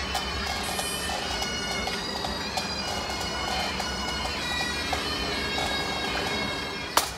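Pipe band bagpipes playing, the steady drones held under the chanter melody. Near the end the sound breaks off with a sharp click.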